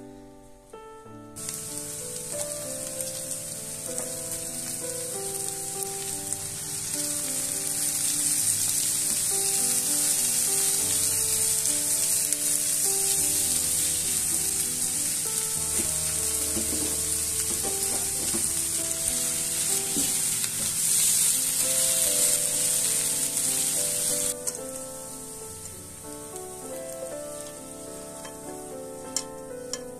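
Diced red bell pepper and onion sizzling in a frying pan while a silicone spatula stirs them. The sizzle starts about a second in and cuts off suddenly about three quarters of the way through. Soft background music plays throughout.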